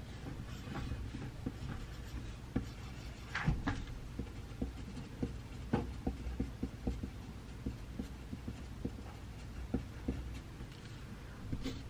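Pencil writing on paper: irregular small scratches and taps, with a louder scratch about three and a half seconds in, over a steady low room hum.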